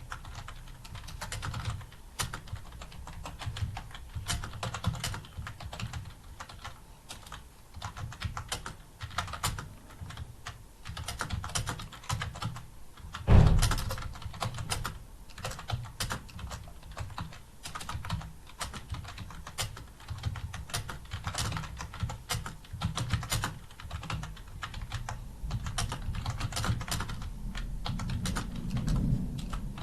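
Continuous fast typing on a computer keyboard: keys clicking in a dense, irregular stream, with one much louder thump about halfway through.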